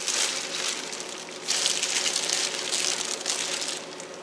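Clear plastic oven cooking bag crinkling as it is pulled open and pushed back, in two long stretches, the second starting about one and a half seconds in.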